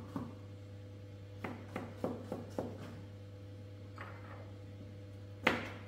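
A few scattered light knocks and clicks of kitchen utensils during food preparation, the loudest near the end, over a steady low hum.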